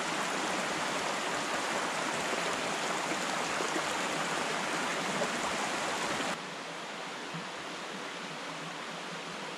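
A woodland stream rushing over rocks in a steady, even wash of water. About six seconds in it drops suddenly to a softer rush.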